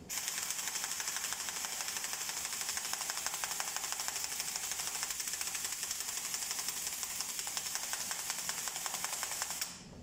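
Air impact wrench hammering without a break on a cylinder head bolt, loosening it, then stopping just before the end.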